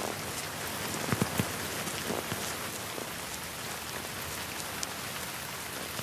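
Steady rain falling, with a few brief louder ticks now and then.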